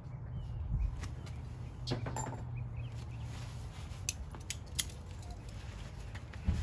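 Propane burner running steadily under a plow disc wok as it heats for seasoning, with a few light, sharp clicks.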